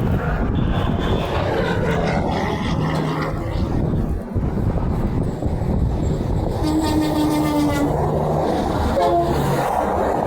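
Semi-truck air horn sounding over loud, steady highway traffic noise: one held blast of about a second, about two-thirds of the way in, then a short blast near the end.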